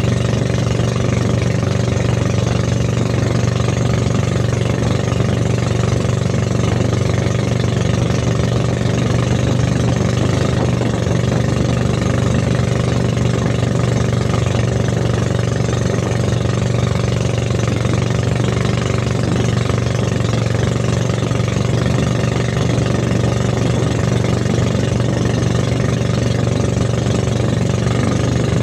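Engine of a motorized bangka outrigger boat running steadily under way, a constant low hum, with water rushing and splashing along the hull.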